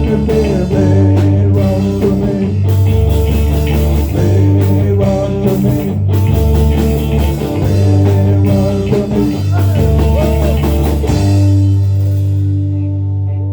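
Live band playing the close of a rock-and-roll song: guitar, bass and drums. About eleven seconds in the drums stop and a final held chord rings out.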